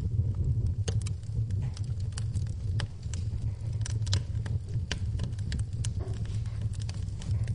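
Wood fire burning in a fireplace, crackling with sharp, irregular snaps and pops several times a second over a low, steady rumble of the flames.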